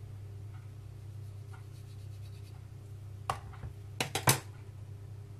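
Scissors and vitamin E gel capsules being handled over a plastic bowl: faint scratching, then one sharp click a little over three seconds in and a quick run of three louder clicks about four seconds in, as the capsule tips are snipped and the capsules squeezed out. A steady low hum runs underneath.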